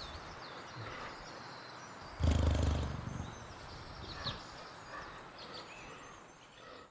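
Recorded cheetah sound from Google's 3D animal viewer: a low, pulsing big-cat growl about two seconds in, over an outdoor background of birds chirping.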